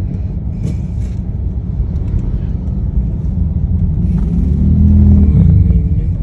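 Car engine and road rumble heard from inside the cabin while driving, swelling louder for about a second around four to five seconds in.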